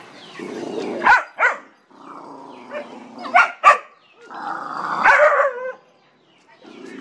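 Dogs growling at each other with sharp barks: two quick barks about a second in, two more about three and a half seconds in, and another growl with a bark around five seconds in.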